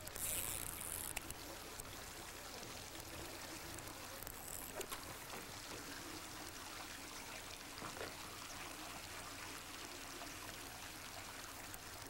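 Faint, steady background hiss of outdoor ambient noise with no distinct event. A brief rustle in the first second, then a few faint ticks.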